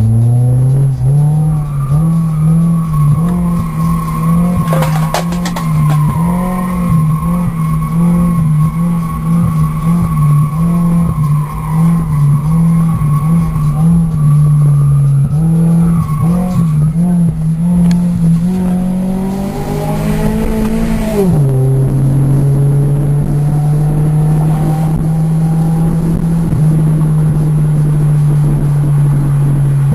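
Toyota Celica drift car's engine revving hard, its pitch jumping up and down again and again as the throttle is worked, while the tyres squeal in a steady high tone through the first half. About twenty seconds in the revs climb, then drop suddenly, and the engine holds a steadier note.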